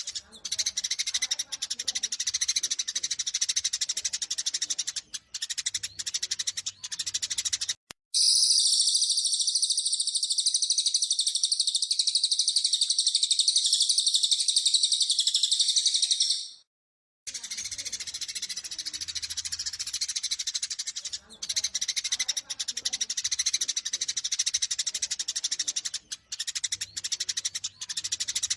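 Eurasian tree sparrows in a fast, agitated fighting chatter of rapid chirps, broken about eight seconds in by a louder continuous high trill lasting some eight seconds. After a brief gap the sparrow chatter resumes.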